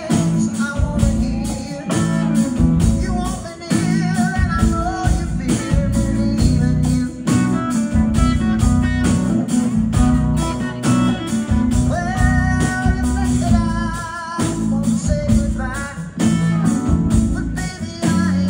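Live rock band playing, heard from the crowd: electric guitar over drums and bass.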